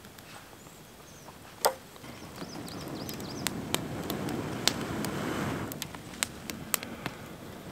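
A long breath blown onto a small kindling fire in a metal fire tray, from about two seconds in to about six, feeding air to get the twigs to catch, while the burning twigs crackle and snap. A single sharp knock about a second and a half in.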